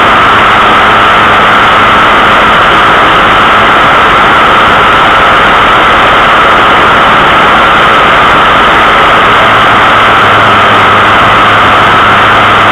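Steady, heavily overdriven engine and wind noise from a camera riding low on a small moving vehicle, with a constant low hum under a loud hiss.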